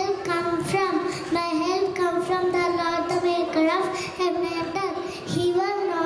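A young girl singing alone into a handheld microphone, holding long notes that step up and down in a simple melody.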